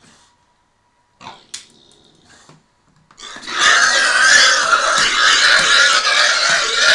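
Pig squealing loudly and continuously for about four seconds while being held down, starting about three seconds in. Before that come a couple of short, faint sounds.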